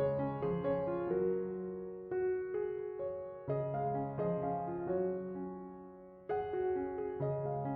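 Soft solo piano background music, a slow melody of notes that ring and fade.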